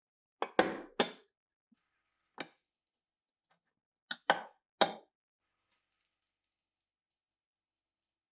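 Steel parts of a Thompson 1928 submachine gun's trigger frame clicking and clacking sharply as they are handled and fitted: three clacks in the first second, one more about a second later, then three more around four to five seconds in, followed by a few faint ticks.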